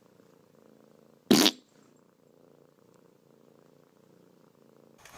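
A cat purring steadily and faintly, broken once about a second and a half in by a short, loud burst.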